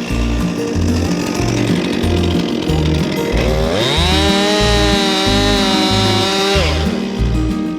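Chainsaw cutting up a fallen maple: it drops back from full throttle at the start, then revs up again about three and a half seconds in and holds high for about three seconds before easing off. Background music with a steady beat plays under it.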